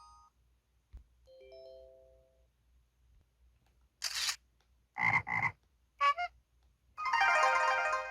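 A run of LG-SV360 phone sound effects played one after another: a soft chime, then camera shutter sounds (a single sharp click, then a quick double shutter), a short electronic blip, and a louder bright chiming tone near the end.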